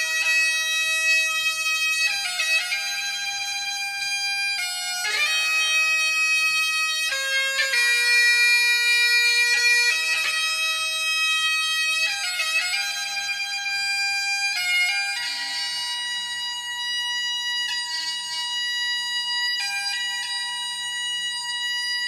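Great Highland bagpipe playing a slow melody: held chanter notes that change every second or two over a steady, unbroken drone.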